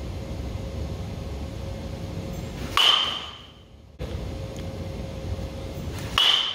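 Baseball bat hitting a tossed ball twice, each contact a sharp ping with a short ring, about three and a half seconds apart. A steady low rumble lies underneath.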